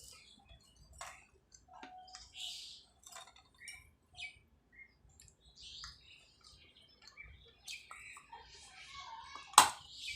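Baked clay being bitten and chewed: scattered small, sharp crackles and crunches, with one loud crack near the end as a piece snaps off.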